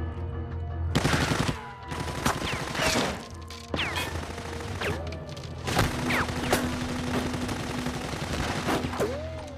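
Film-soundtrack gunfire: heavy, rapid volleys of shots starting about a second in, with several short falling whines among them, over a steady music score.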